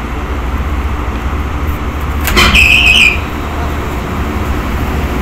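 Large rooftop centrifugal exhaust fan running with a steady low hum; its blower wheel bearing has just been greased and the unit makes no unusual noise. About two seconds in comes a short, sharp, high-pitched sound.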